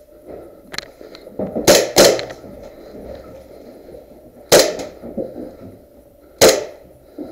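Paintball pistol firing four sharp pops: two quick shots a little under two seconds in, then single shots near the middle and near the end.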